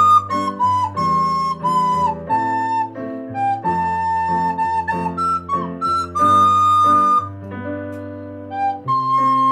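Soprano recorder playing a melody of mostly held notes over a backing accompaniment of low sustained chords, with a short dip in loudness near the end.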